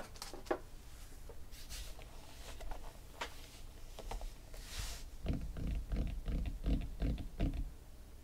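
Cardboard boxes of trading cards being handled on a tabletop: light clicks and a short rustle of cardboard sliding, then a quick run of soft low knocks as the boxes are set down and shifted into place.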